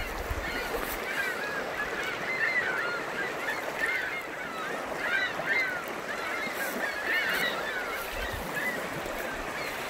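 A flock of geese honking: many short overlapping calls from about a second in until near the end, over the steady rush of river water flowing into the lake.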